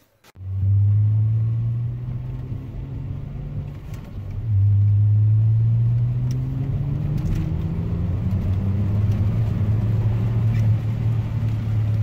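Saab 2.8-litre turbo V6 engine running under load on a test drive, its note getting louder about four seconds in and then rising slowly as the car gathers speed. It runs with no misfires recorded, on a replacement ignition coil.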